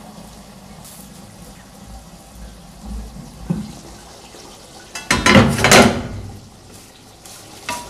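Aluminium pot lid lifted off a steaming pot of simmering curry and set aside. About five seconds in comes a loud, rattling metal clatter of the lid lasting about a second, over a low, steady hiss.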